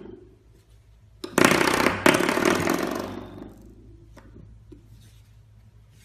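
Spring door stop twanged by a puppy, a loud buzzing boing about a second and a half in, set off again almost at once and dying away over about a second and a half.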